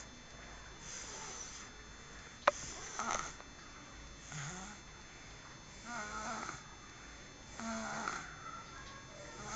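Snoring: a short snore about every two seconds, five in all, with one sharp click about two and a half seconds in.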